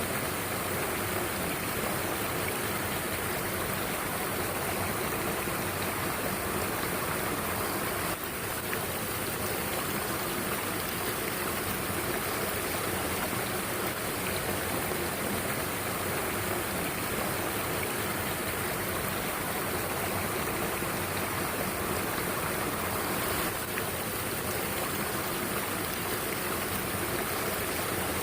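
Mountain stream water rushing steadily over rocks, an even continuous wash.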